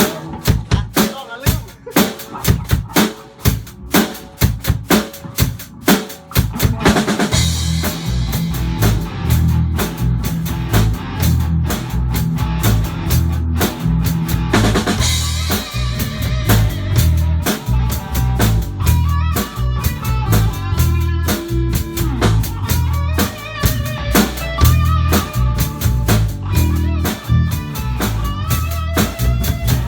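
Live band playing in a rehearsal room: the drum kit starts alone with separate hard hits on snare, rims and bass drum, and about seven seconds in the bass and the rest of the band join with a steady beat.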